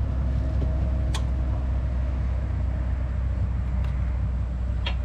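Steady low drone of an idling engine. Over it, a sharp click about a second in and another near the end as the backhoe's hydraulic hose quick-couplers are unhooked by hand.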